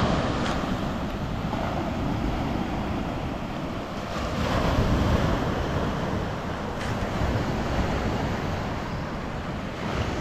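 Sea waves washing ashore with wind rumbling on the microphone, the surf swelling a little about halfway through.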